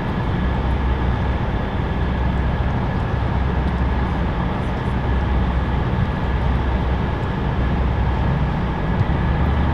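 Tugboat engine running steadily: a low, even drone with a constant hiss over it.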